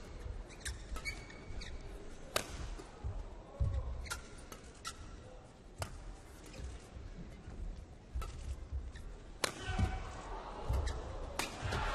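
Badminton rally in an indoor arena: sharp racket hits on the shuttlecock about every second, with players' shoes squeaking and thudding on the court. Crowd noise swells near the end as the rally closes.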